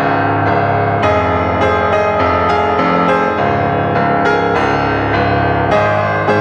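Background music led by piano or electric keyboard: a steady run of held chords and notes changing about twice a second.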